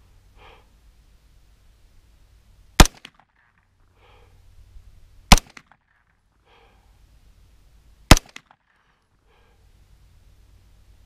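Three single shots from a 9mm AR9 pistol, fired slowly and evenly about two and a half seconds apart, each a sharp crack.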